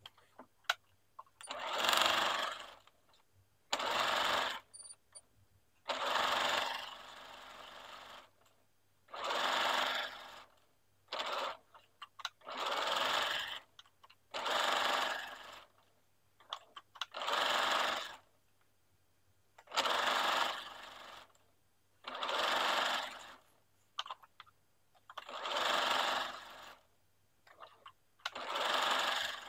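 Electronic domestic sewing machine zigzag-stitching knit fabric in about a dozen short runs of a second or so each, stopping between runs while the fabric is turned and guided, with small clicks of handling in the pauses.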